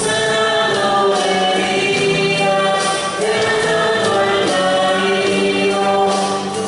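Choir singing a slow worship song with long held notes over instrumental accompaniment.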